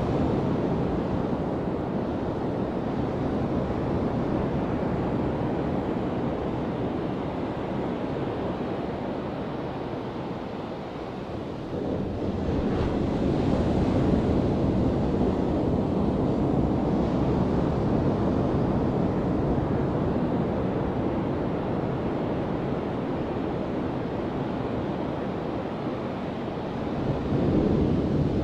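Ocean surf breaking on a sandy beach: a continuous wash of waves that swells and fades, with a louder break about twelve seconds in and another near the end.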